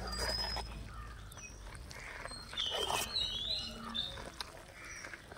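A metal spatula stirring thick, moist ground coconut into cooked cowpeas in a steel pot, with soft scrapes and knocks. Birds call in the background with short high chirps, the loudest about halfway through.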